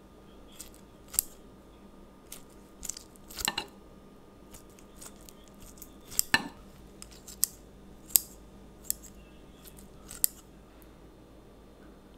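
Kitchen scissors snipping through a piece of sauce-covered meat held in metal tongs over a plate: a series of short, sharp snips and clicks at irregular intervals.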